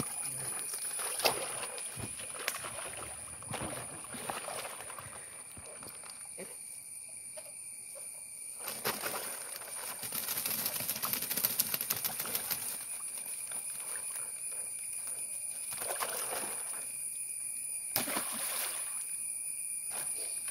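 Rustling and crackling of a nylon cast net and the plants under it as the net is handled and gathered up by hand, busiest about ten seconds in. A steady high-pitched tone sits behind it.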